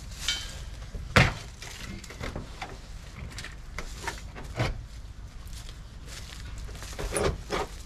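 A few separate clunks and knocks of metal as a propane tank is unfastened from a trailer's tongue mount and lifted off, the loudest about a second in.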